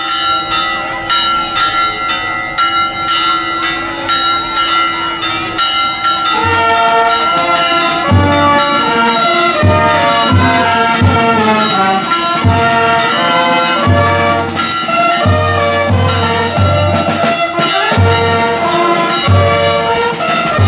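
Charanga brass band of trumpets, trombones, saxophone and drums playing a tune. It opens on long held notes; about six seconds in a moving brass melody starts, with the bass drum beating steadily from about eight seconds in.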